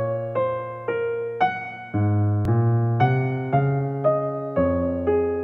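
Background music: a keyboard, electric-piano-like, playing a gentle tune, with a new note or chord about twice a second.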